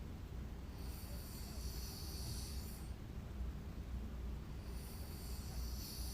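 A sleeping woman snoring: two long, hissing breaths about four seconds apart over a steady low rumble.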